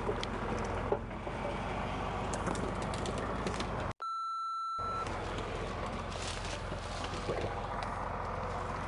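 An engine running steadily at idle, with scattered clicks and rustles. About four seconds in, the sound cuts out for under a second while a steady high beep sounds, then the engine comes back.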